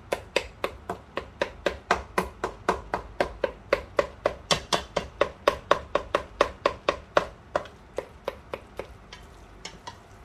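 Wooden spatula knocking against the side of a stainless steel pot while thick apple pie filling is stirred, a steady clack about four times a second that fades out near the end.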